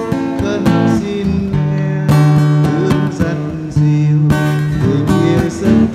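Cutaway acoustic guitar strummed and picked in an instrumental passage, chords left ringing between strokes, with strong strums about two seconds in and again about four seconds in.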